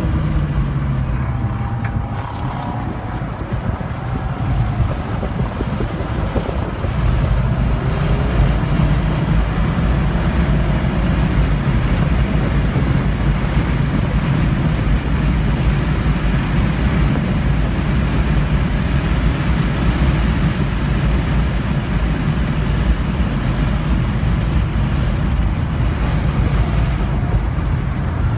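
Cabin sound of a 2015 Volkswagen GTI's turbocharged 2.0-litre four-cylinder on track. The engine note falls off throttle for the first few seconds, then the engine pulls hard at full throttle for most of the rest, over steady road and wind noise.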